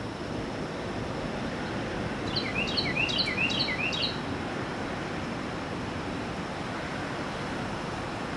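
A bird calls a quick run of about five chirps, roughly three a second, about two seconds in. Steady surf noise runs underneath.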